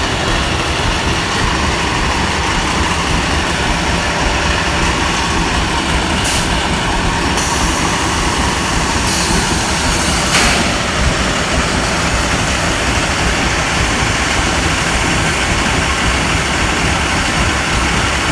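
Corrugated board production line and stacker conveyor running: a loud, steady machine drone with a low hum. Two brief hissing sounds come about six and ten seconds in.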